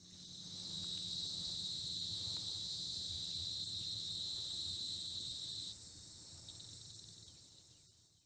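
Insects chirring in a steady high-pitched trill. The loudest part of the chirring stops about six seconds in, and what remains fades out.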